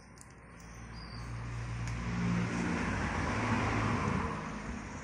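A road vehicle passing: a rush of engine and tyre noise that swells, is loudest about three seconds in, then fades, over a low steady hum.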